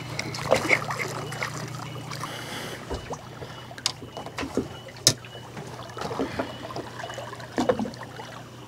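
Water lapping and sloshing against the hull of an anchored small boat while a fish is brought in. A low steady hum stops about three seconds in, and scattered short knocks and a sharp click about five seconds in come from the landing.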